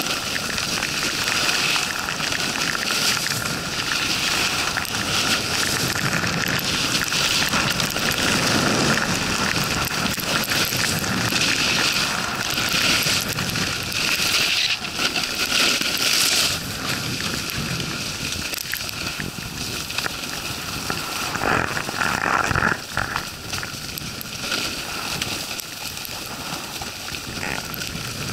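Snowboard sliding and carving over packed snow at speed: a continuous scraping rush of the board's edges, mixed with wind noise on the action camera's microphone. It gets quieter about three-quarters of the way in.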